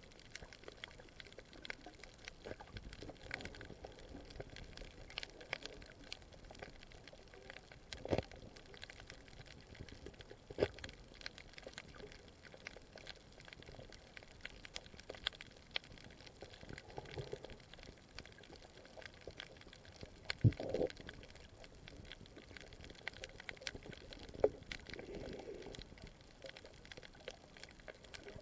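Underwater sound through a submerged camera: a low, steady water hiss dotted with many small sharp clicks and crackles. A few louder knocks stand out: one at about 8 seconds, one at about 10 seconds, and the loudest at about 20 seconds.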